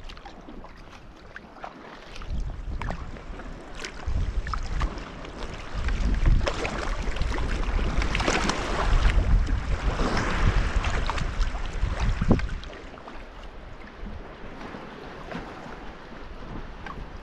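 Sea kayak moving through calm water: paddle splashes and drips and water rushing along the hull, with wind buffeting the microphone. The buffeting is heaviest through the middle and eases off after about twelve seconds.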